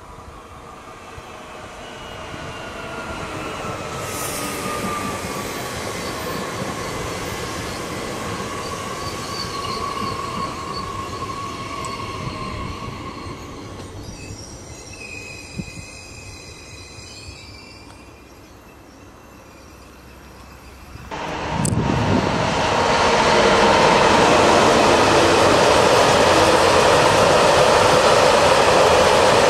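A TER regional railcar passes and draws away, its whine falling slowly in pitch and fading. After a sudden cut, a long freight train of covered hopper wagons rolls past close by with a loud, steady rumble.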